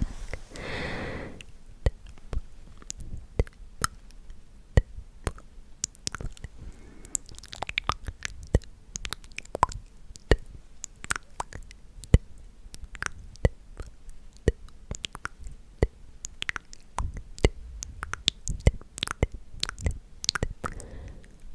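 ASMR mouth sounds close to the microphone: irregular wet clicks and pops of lips and tongue, a few a second, with a breathy puff about a second in.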